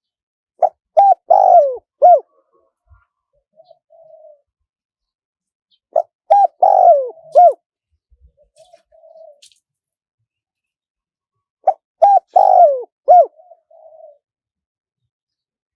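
Spotted dove cooing in its high-voiced wild-style call: three phrases about five seconds apart, each a quick run of four or five coos, one of them longer and falling, followed about two seconds later by a soft low note.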